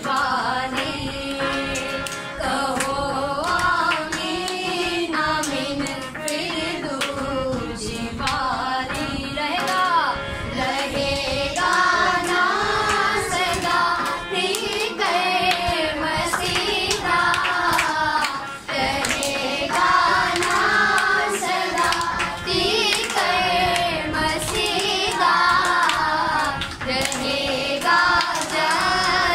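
A few voices sing a worship song with hands clapping along to the beat.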